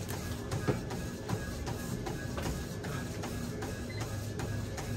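Background music with a steady beat, about two and a half beats a second, over a steady low mechanical hum.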